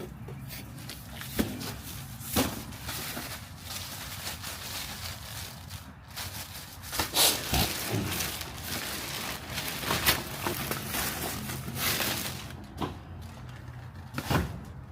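Rummaging through plastic bags and boxes of truck parts: rustling and crinkling with scattered knocks and clunks, busiest in the middle stretch. A low steady hum runs underneath.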